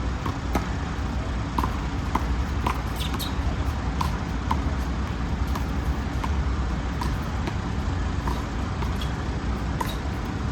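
Sharp smacks of a rubber handball struck by hands and hitting the wall and court, irregular at roughly one a second, over a steady low traffic rumble.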